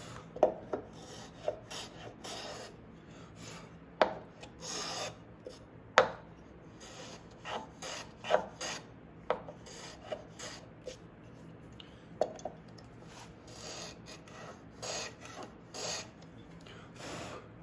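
Low-angle block plane chamfering the edges of a small wooden plaque: a series of short, irregular scraping strokes as the blade shaves wood, with a few sharp knocks of the plane against the work.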